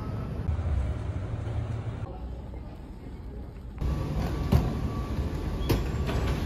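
A low, steady rumble of an airport terminal corridor. From about four seconds in, a luggage carousel is running, with a mechanical rumble and a few sharp clacks from its moving slats.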